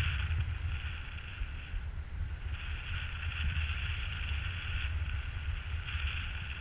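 Airflow buffeting an action camera's microphone in paraglider flight: a steady low rumble with a higher hiss that fades about two seconds in and again near five seconds, each time coming back.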